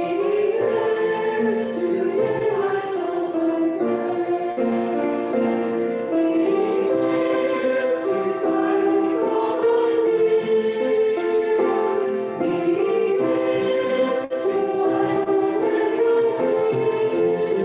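Choir singing a hymn or worship song with musical accompaniment, the voices holding long notes that change pitch.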